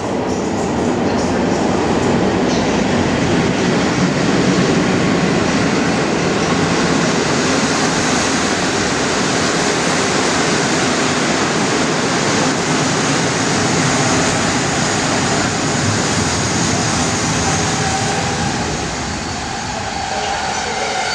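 A train running on the rails with a loud, steady rolling rumble that eases a little near the end.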